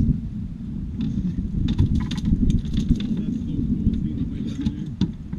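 Low, steady rumble of wind on the microphone on an open boat, with bursts of light metallic clinks and rattles about two seconds in and again near the end.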